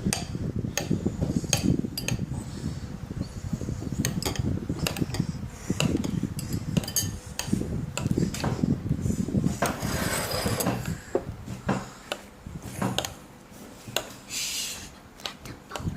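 A spoon stirring thick, thickening slime in a bowl, with repeated clicks and scrapes against the bowl. The slime is setting as borax activator solution is added. The stirring eases off, quieter and with fewer clicks, after about twelve seconds.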